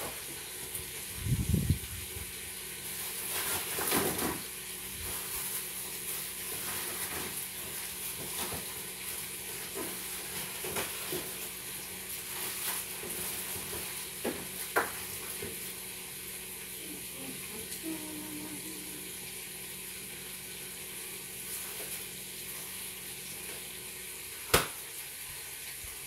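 Bacon-wrapped chicken sizzling in a closed waffle iron: a steady frying hiss with scattered crackles. A low thump comes about a second and a half in, and a sharp click comes near the end.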